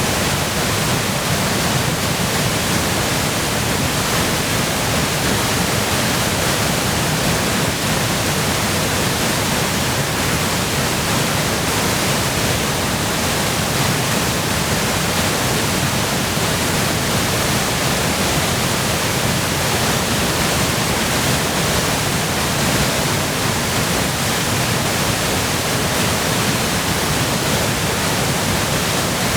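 Waterfall in full spate from spring melt and heavy rain: a loud, steady rush of falling water with no break or change.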